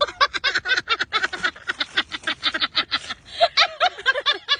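High-pitched laughter in quick, unbroken bursts of several 'ha's a second.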